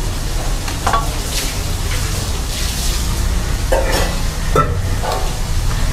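Cooking in a restaurant kitchen: stirring and frying, with a few short clatters over a steady low rumble and hiss.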